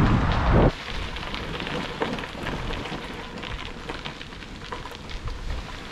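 Wind buffeting the microphone of a moving bicycle, cut off abruptly after about half a second. Then comes a quieter, steady crackle with scattered small clicks from bicycle tyres rolling over a rough path.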